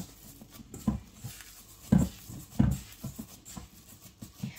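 Hands kneading and squeezing a thick oatmeal cookie dough in a bowl, making soft, irregular squishes and thumps, the strongest a couple of seconds in.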